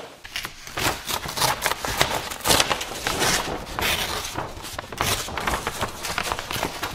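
Sheet of brown paper rustling and crinkling as it is handled and torn off a roll, in a dense run of crackles.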